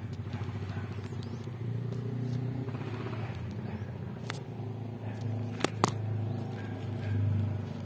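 An engine running steadily with a low hum, with two sharp clicks a little after halfway through.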